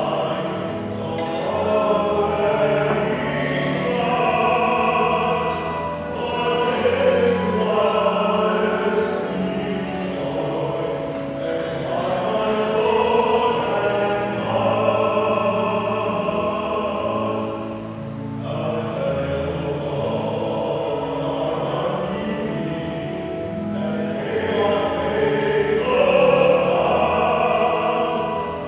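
A church hymn sung by voices with instrumental accompaniment, the offertory music during the preparation of the gifts at Mass.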